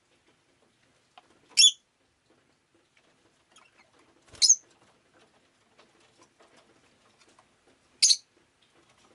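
Rosy-faced lovebird giving three short, sharp, high-pitched chirps a few seconds apart.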